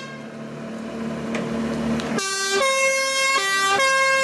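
Forklift engine running for about two seconds, then a two-tone emergency horn sounding, alternating between a lower and a higher note.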